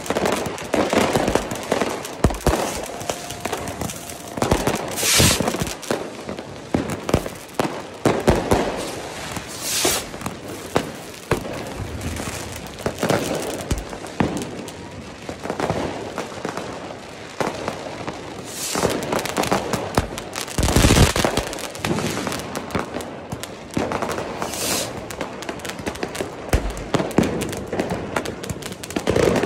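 Fireworks and firecrackers going off in the street: a near-constant crackle of small bangs with several louder booms, the loudest about twenty seconds in.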